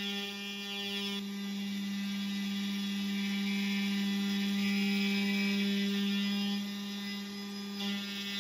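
Makera Carvera Air desktop CNC's spindle spinning a single-flute carbide end mill at 12,000 RPM as it mills a pocket in aluminum plate: a steady whine with many overtones, dipping briefly near the end.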